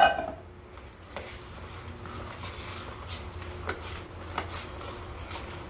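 Soft, sticky bread dough being mixed by hand in a plastic bowl, giving faint irregular wet clicks and slaps, after a sharp knock at the very start.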